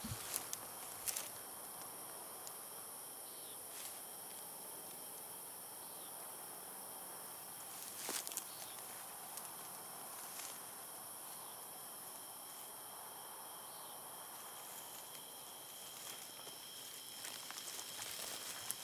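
Night insects, crickets, keep up a steady chorus of several high-pitched trills, with a few faint clicks and rustles from footsteps and gear.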